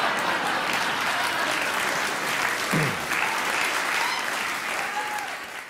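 Studio audience applauding and cheering after a monologue punchline, with one voice calling out in a brief falling shout about three seconds in. The applause fades out at the end.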